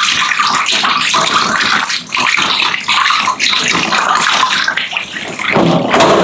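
Kitchen tap running into a stainless steel sink while pieces of catfish are rinsed and rubbed by hand under the stream, water splashing steadily, with brief breaks as the hands move and a heavier splash near the end.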